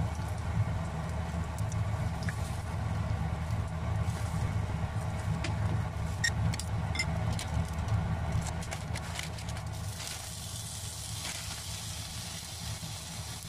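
Beaten egg cooking in a frying pan over a steady low kitchen hum, with wooden chopsticks clicking against the pan a handful of times in the middle. Near the end a brighter sizzle rises as frozen chopped green onion goes into the hot pan.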